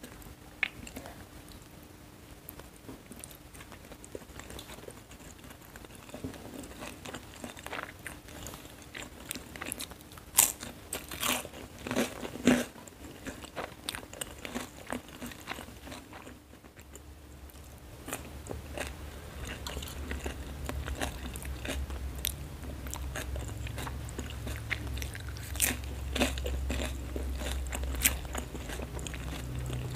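Close-miked eating: mouthfuls of mie goreng (fried noodles) chewed with crunchy bites and sharp clicks, the loudest crunches about ten to thirteen seconds in. From a little past halfway a steady low hum sits underneath.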